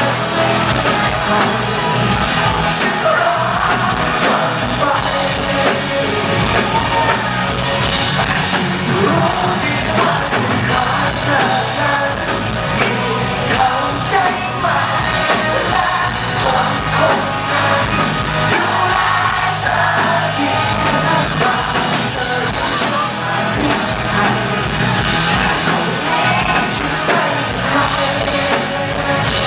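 Pop-rock band playing live with a singer, with yells from the crowd mixed in.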